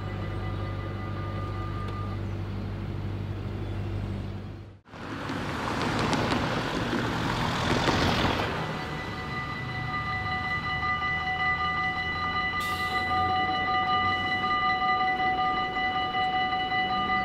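Railway level crossing warning bells ringing, a rapid pulsing high multi-tone chime, starting a little past halfway as the barriers begin to come down again. Before that comes a steady low engine hum, cut off abruptly, then a vehicle's rushing noise swelling and fading.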